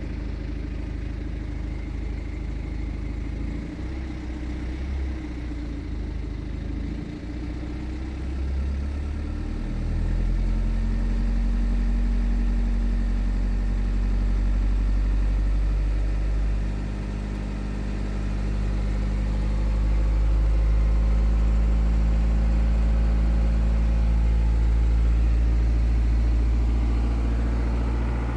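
BMW 420d's B47 four-cylinder diesel engine idling before it is warm, with timing chain noise clearly audible; the noise comes from the timing chain while the oil is still below operating temperature. The sound grows louder about ten seconds in.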